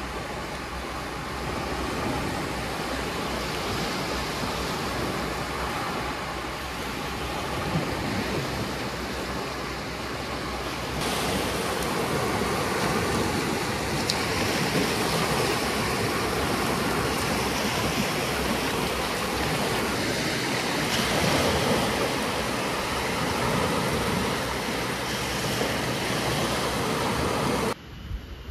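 Small waves breaking and washing up a sandy beach in a steady rush of surf. It grows a little louder about eleven seconds in and cuts off abruptly near the end.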